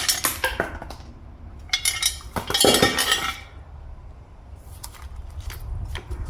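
Metal parts of a Toyota U760E automatic transmission clinking and clattering as they are handled during disassembly. A loud burst of clatter comes about two seconds in, followed by light scattered ticks.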